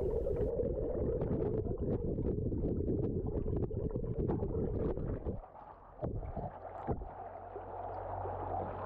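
Shallow, fast river water flowing over rocks, heard through a camera held partly underwater: a muffled rushing and gurgling with small knocks. It drops away about five seconds in to a quieter, low rumble.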